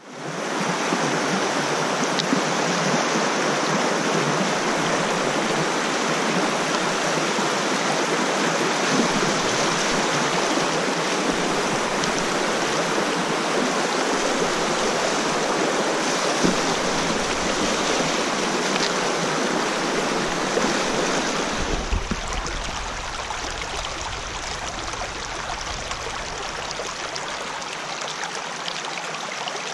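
Shallow stream rushing over rocks in a riffle, a steady, close water noise. About two-thirds of the way through it turns quieter and duller, with a low rumble underneath.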